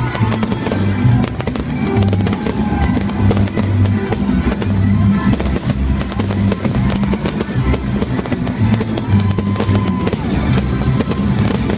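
Fireworks crackling and popping in rapid, continuous succession, with music playing underneath.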